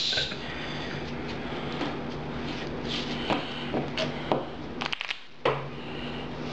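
Playing cards being handled on a table: scattered soft rustles and light taps, with a sharper tap about five and a half seconds in, over a steady low hum.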